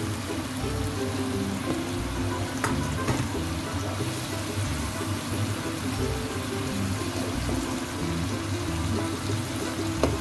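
Background music over the sizzle of a tomato sauce simmering in a nonstick wok with fried mackerel in it. A few light clicks of a spatula against the pan, around three seconds in and near the end.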